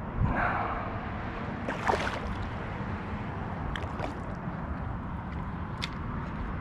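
Water splashing and sloshing as a hooked fish thrashes at the surface beside a kayak, loudest about half a second in, with a few light ticks later on.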